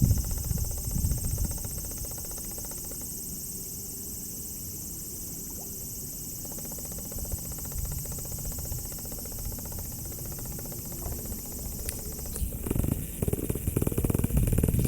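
Steady high-pitched insect chirring from crickets or similar night insects, with irregular low rumbles at the start and again near the end.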